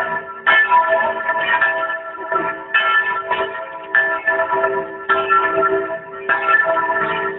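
A peal of bells ringing, a new stroke about every second at uneven spacing, each one ringing on under the next.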